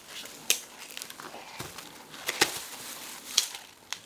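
Corn husks crinkling and tearing as a toddler's hands pull them off an ear of supersweet corn, with a few sharp crackles among the rustling.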